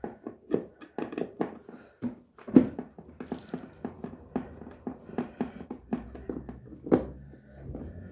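Irregular clicks, knocks and clatter of tools and parts being handled while a semi-automatic washing machine's motor mounting is unbolted, with a louder knock about two and a half seconds in and another near the end.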